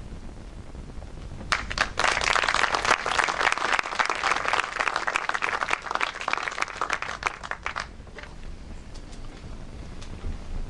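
Audience applauding: dense clapping starts about one and a half seconds in and dies away after about six seconds, leaving a few scattered claps.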